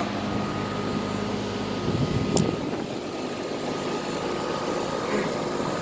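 2005 Tempstar central air conditioner's outdoor unit running steadily: the condenser fan's even whoosh over a steady hum, with the Copeland scroll compressor barely heard beneath. A single short click about two and a half seconds in.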